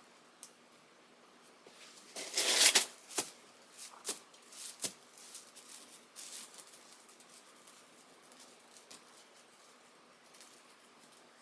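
Handling of artificial grass wall panels: a short burst of rustling about two seconds in, then a few sharp clicks and scattered light rustles.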